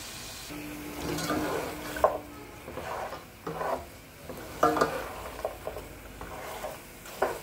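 Slotted plastic spatula scraping and stirring mutton pieces around a large aluminium pot, in irregular strokes about once a second, over a light sizzle of the meat frying in oil and masala.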